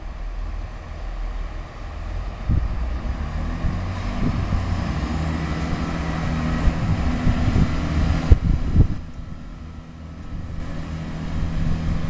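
Class 166 diesel multiple unit's engines running and building up, with a high whine rising in pitch. About eight seconds in, a couple of knocks sound and the whine and high sounds cut off abruptly, leaving a quieter lower rumble that builds again near the end.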